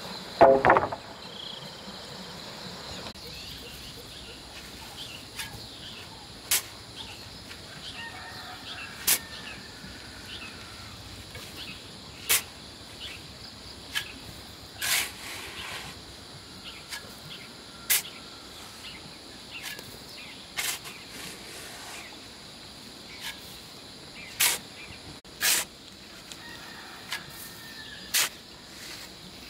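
About a dozen sharp knocks, one to three seconds apart, over a faint rural background; a short, loud pitched call sounds about half a second in and is the loudest thing heard.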